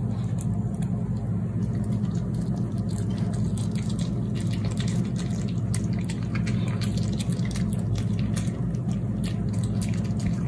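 A small dog eating soft homemade food from a plate: irregular wet mouth clicks and chewing. A steady low hum runs underneath.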